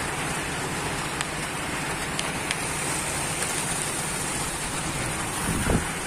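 Rain falling steadily, an even hiss with a few light ticks scattered through it and a couple of low knocks near the end.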